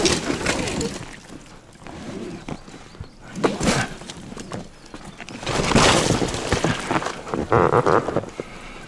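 A boat being hauled over a river logjam: irregular thuds, knocks and scraping, with louder bursts about three and a half seconds in and again around six seconds.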